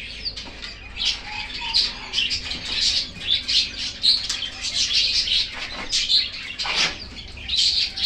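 Small cage birds chirping and chattering continuously in an aviary. Near the end come a couple of knocks as a branch perch is set into the wooden cage.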